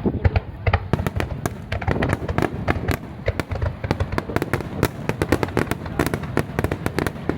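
Fireworks display: a dense run of sharp crackling pops, many a second, over deep booms from bursting shells.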